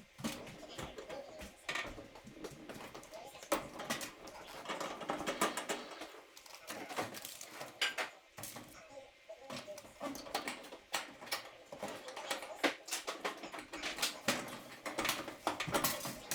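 Irregular clinks, clicks and knocks of tools and metal parts being handled during clothes dryer repair work.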